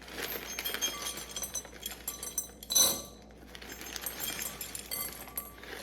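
White chocolate baking chips poured into a dish, clicking and clinking against it, with one louder clink just under three seconds in.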